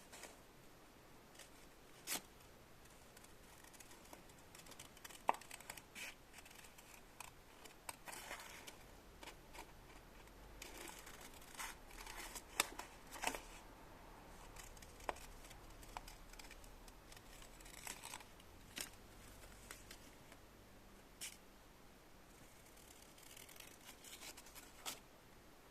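Faint, irregular small clicks and snips of close-up handwork, a dozen or so sharp ticks spread unevenly with quiet rustling between them.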